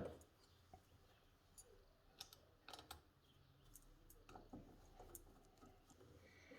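Near silence broken by faint, scattered clicks and light taps from handling a router and its plexiglass base plate, with a sharper click right at the start.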